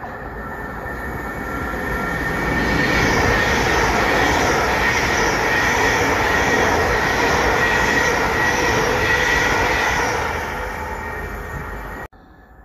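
Greater Anglia electric multiple unit passing through without stopping: the sound of the train builds up as it nears, runs loud with a steady high whine for several seconds, then fades as it goes. The sound cuts off abruptly near the end.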